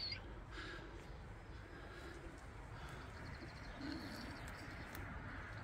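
Faint bird calls: a low call repeated a few times, and a brief run of quick, high chirps about three seconds in.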